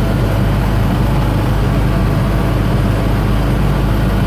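A 1969 M43B1 military truck's engine and gear drivetrain running steadily in first gear, heard from inside the cab: a constant low hum of rotating steel and meshing gear teeth that sounds like a tank.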